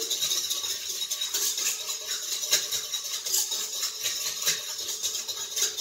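Wire whisk rattling and scraping fast against a stainless steel mixing bowl, stirring fresh yeast into warm water to dissolve it.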